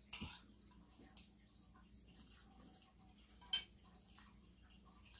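Near silence broken by two brief, soft eating sounds, one just after the start and one about three and a half seconds in.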